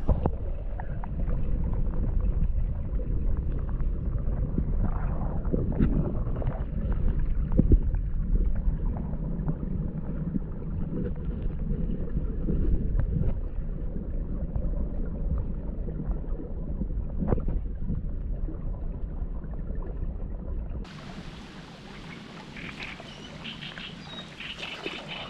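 Muffled underwater sloshing and handling noise, heard through a camera held submerged in a shallow reed channel, with a few sharp knocks. About 21 seconds in, the camera comes out of the water and the sound turns quieter and open: wind in the reeds.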